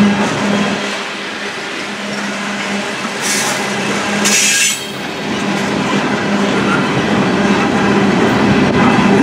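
Loaded steel-coil freight cars rolling past: a steady, loud noise of steel wheels running on the rails. Two short high-pitched wheel squeals break in about three and four and a half seconds in.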